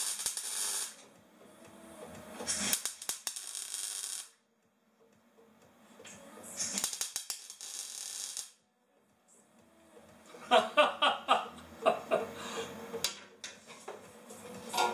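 MIG welder crackling and hissing as it welds an exhaust pipe, in three bursts of a second or two each, each stopping abruptly; after about ten seconds music with a regular beat is the loudest thing.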